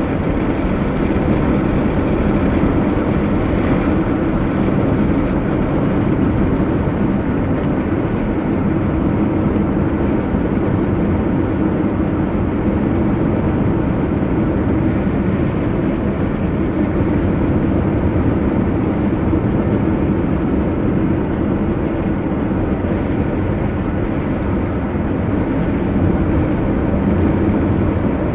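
Car driving at a steady pace: continuous engine and tyre road noise with no sudden changes.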